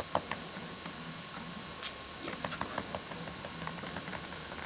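Scattered light clicks and taps of dogs' claws on a concrete patio as the dogs move about, over a faint steady hum.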